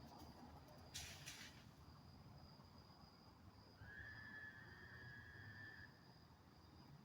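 Crickets chirring steadily and faintly, with a brief hissing rasp about a second in. Then, from about four seconds in, an unidentified steady whistle-like call sounds for about two seconds.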